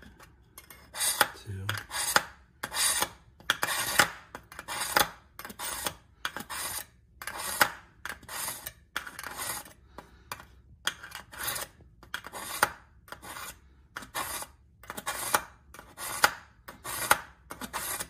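Kitchen knife blade drawn repeatedly through the coarse carbide slot of a KitchenIQ Edge Grip 2-stage sharpener: a short scraping rasp with each pull, about one to two pulls a second. The carbide blades are shaving metal off a dull edge to bring it back.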